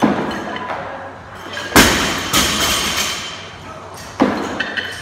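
Loaded barbell with bumper plates dropped from overhead onto a rubber gym floor: a heavy thud about two seconds in, with the bar and plates ringing after it. A smaller thud follows right after, and another comes about four seconds in.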